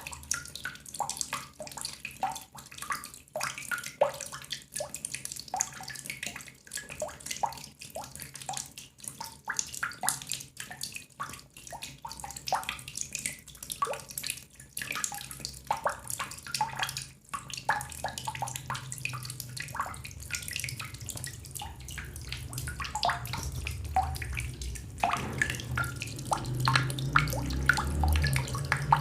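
Water drops falling into water: a rapid, irregular patter of small plinks. About halfway through, a low rumble sets in under the drops and grows louder near the end.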